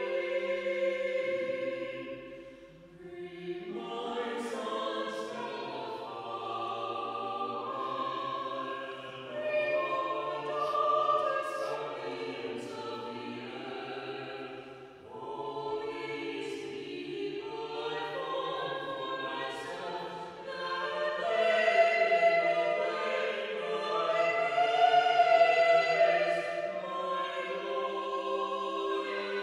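Vocal trio of soprano, alto and bass-baritone singing a hymn in harmony, in sustained phrases with short breaks between them near the start and about halfway. The singing swells loudest in the last third.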